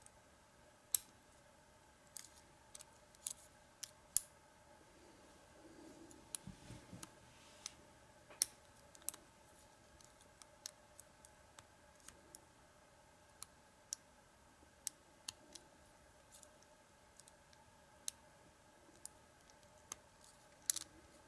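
Lock pick and tension wrench working the pins inside a blue American Lock 1100 padlock: irregular sharp metallic clicks and ticks, one or two a second, as the pins are lifted and set. A brief low rustle of handling comes about a third of the way in.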